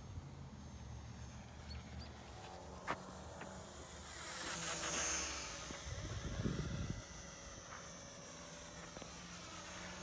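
Small electric motor and propeller of a 400 mm foam RC plane (Eachine Mini P-51D Mustang) buzzing in flight, a thin steady whine that grows louder as it passes overhead about five seconds in and then fades. A brief low rumble comes about six seconds in.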